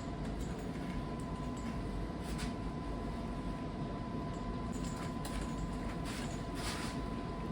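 Steady low room hum with a faint thin whine, and a few soft scratchy strokes of hand wet-sanding plastic with fine sandpaper.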